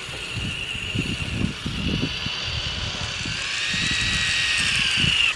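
Electric RC truck's Titan 12T 550 brushed motor and Summit transmission whining as it drives on 3D-printed tracks through deep snow, with irregular crunching of snow underneath. The whine climbs in pitch past the middle and cuts off suddenly at the end.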